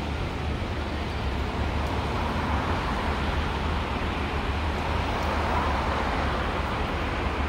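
Electric paper roll truck driving across concrete: a steady rumbling hum from its drive and wheels, swelling twice, about two and five seconds in.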